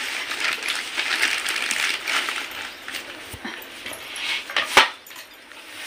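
Thin plastic carry bag crinkling and rustling as hands knead and squeeze the soft rice-flour dough inside it, louder in the first two seconds, with one sharp click near the end.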